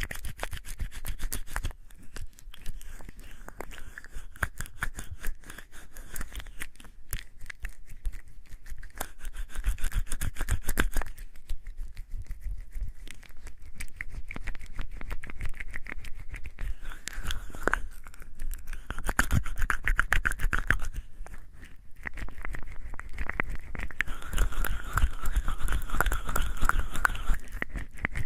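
Wet hands being rubbed together with bar soap: a continuous squelching, crackling rub of lather, growing louder in a few stretches.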